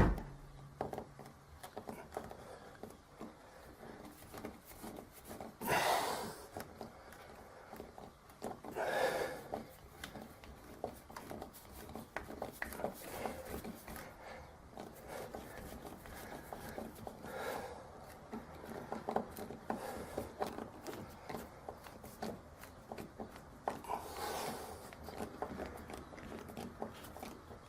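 Quiet hand-work on a door handle being fitted: scattered light clicks and rubbing, with a few brief soft swishes.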